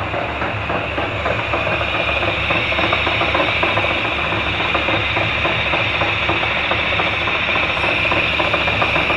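Metal lathe boring out the bore of an iron sleeve for a motorcycle wheel hub to bearing size. The tool cuts steadily with a high-pitched whine over the machine's running hum.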